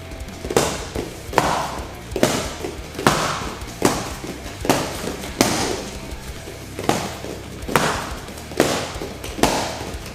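Punches landing on hand-held training pads in a fast reaction drill: a sharp smack about every 0.8 seconds, with one longer pause midway, each hit ringing briefly in the room.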